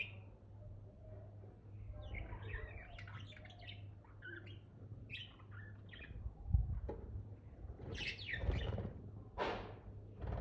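Budgerigars chirping and chattering in short, irregular bursts, over a steady low hum, with a dull knock about six and a half seconds in and another about two seconds later.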